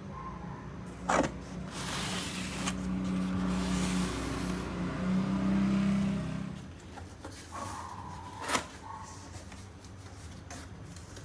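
Handling noise: a sharp knock, then about four seconds of scraping and rubbing over a low drone, then a second sharp knock.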